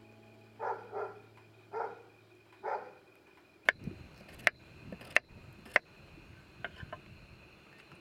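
Kitchen knife chopping on a wooden cutting board: four sharp knocks a little over half a second apart in the middle, then a few lighter taps. Four short muffled sounds come before the chopping.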